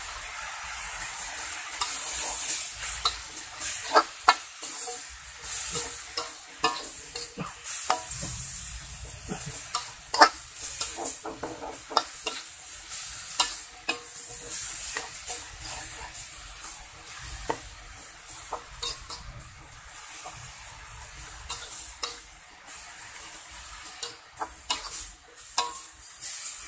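Mushrooms stir-frying in a metal wok: a steady sizzle under frequent scrapes and clinks of the metal spatula against the pan, a little louder in the first half.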